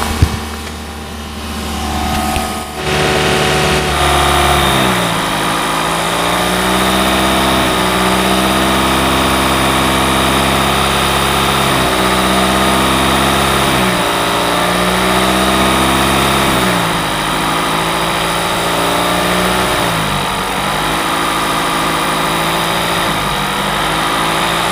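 Direct-injection (GDI) car engine running at raised revs during an intake-cleaner treatment, its speed stepping up and down every few seconds. A steady high whine sits over it from about four seconds in.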